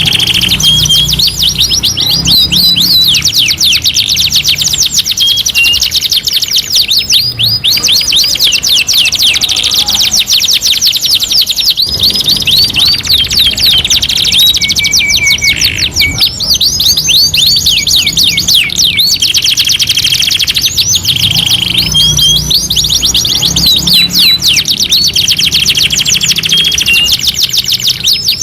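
Domestic canary singing continuously: long, fast trills and rolls of high repeated notes, one phrase running straight into the next with only brief breaks.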